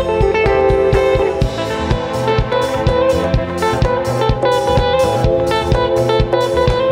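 Live band playing: electric guitar over bass and a steady drum beat.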